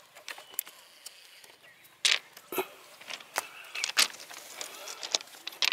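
Sharp clicks and clatter of railway ballast stones shifted by hand, with a handful of louder knocks spread through the second half.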